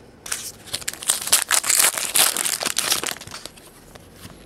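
A trading-card pack wrapper being torn open and crinkled by hand, a dense crackling that dies away about three seconds in.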